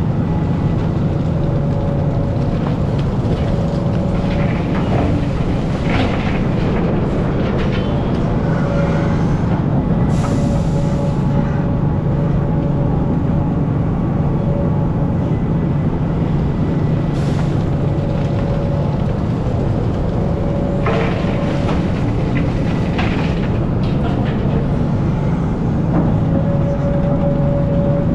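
Hidromek hydraulic excavator's diesel engine running steadily under digging load, with a whine from the hydraulics that comes and goes as the boom and bucket move. Brief scrapes of the steel bucket cutting into dry earth and rock are heard several times.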